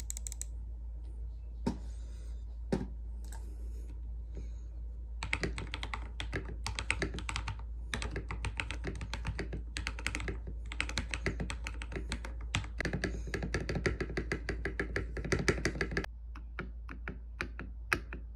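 Mechanical keyboard with a tape-modded spacebar: a few scattered clicks, then about ten seconds of fast, continuous typing, then slower single key presses near the end. The spacebar has tape added underneath to cut its hollow sound.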